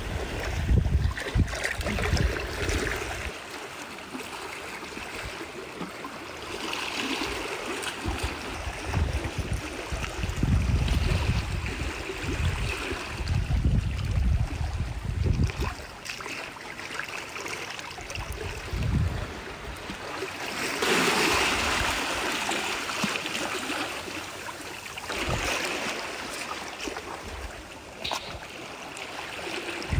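Shallow tide-pool seawater sloshing and trickling around rocks, swelling in hissy splashes a few times. Irregular low rumbles of wind on the microphone come and go underneath, strongest in the first few seconds and in the middle.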